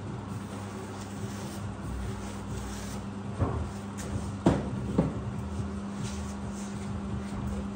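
Three short knocks and clunks as tools and containers are handled at a print-shop workbench, about three and a half, four and a half and five seconds in, the middle one the loudest, over a steady low hum.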